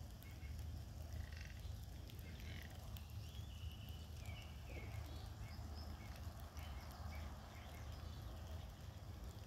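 Faint outdoor ambience: a low steady rumble with scattered short, high chirps throughout.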